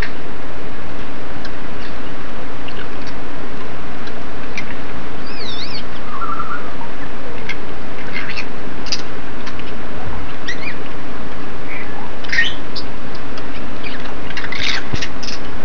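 Loud, steady rain, with African grey parrots calling over it: scattered short whistles and chirps, a wavering whistle about five seconds in, and a cluster of squawks and whistles near the end.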